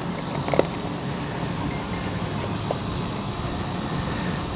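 Steady low mechanical rumble, with a single light click about half a second in.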